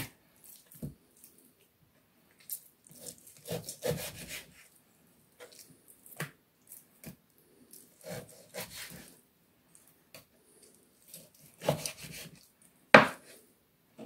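Kitchen knife cutting raw pork ribs into pieces on a wooden cutting board: scraping cuts and irregular knocks of the blade against the board, the loudest knock near the end.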